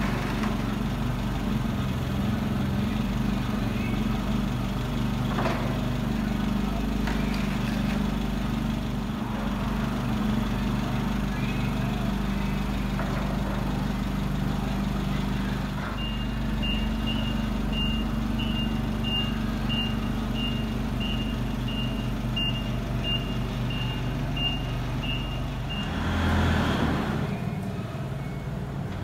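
Propane-fuelled Nissan forklift running steadily under a boy's driving, its engine a constant low hum. In the middle its reversing alarm beeps about twice a second for around ten seconds, and near the end there is a brief louder rushing noise.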